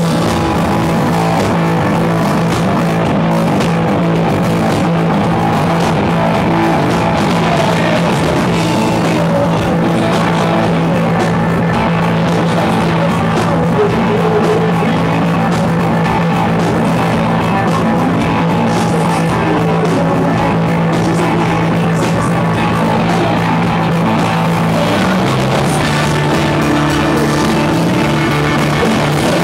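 A live rock band playing at full volume: electric guitars, bass and drum kit, with a male lead voice singing into the microphone. A low note holds steady for most of it and changes a few seconds before the end.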